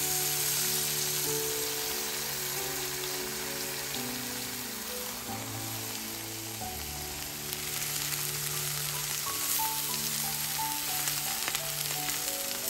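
Halved romaine lettuce heads sizzling steadily as they char on a hot griddle pan, with soft background music underneath.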